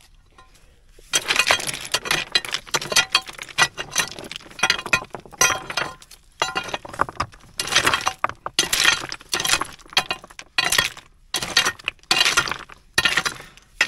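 Metal pry bar jabbing and levering among loose rubble stones, with stones clinking and rattling against the bar and each other in repeated clattering bursts, starting about a second in.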